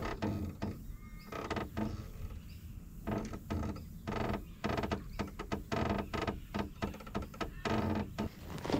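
Fishing reel being wound in short, uneven bursts of whirring as a lure is retrieved.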